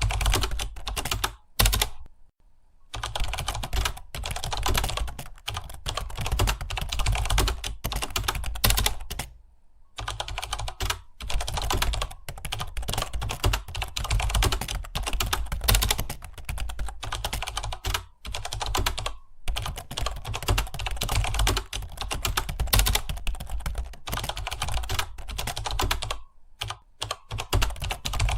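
Rapid continuous typing on a computer keyboard, fast keystrokes with a few short pauses.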